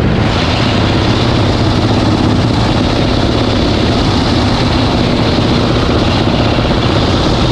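Motorcycle being ridden, its engine running steadily at road speed.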